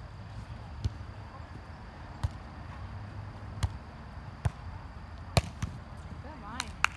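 Volleyball being played in a rally: sharp single smacks of hands and forearms on the ball, about one a second, with two quick ones near the end, over a low steady rumble.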